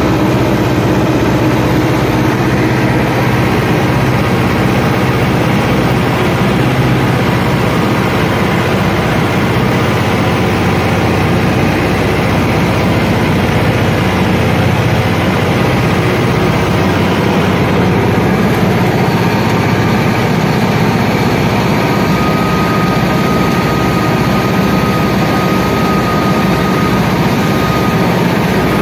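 John Deere 6403 tractor's diesel engine running steadily, heard from the operator's seat.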